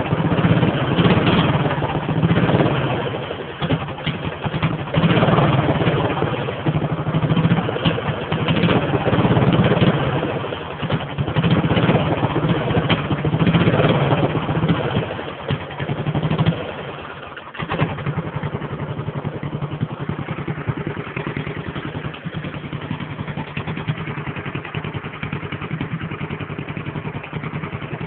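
Racing lawnmower engine, freshly tuned and warmed up, revved in repeated blips for about the first half. It dips briefly, then settles into a steady idle.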